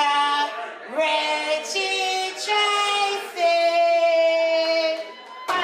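A woman singing alone without accompaniment: a falling note, then several short held notes and one long held note near the end.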